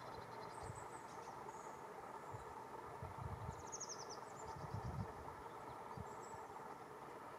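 Faint outdoor ambience: a steady low hum with small, quick high-pitched chirps now and then and a few soft low thuds.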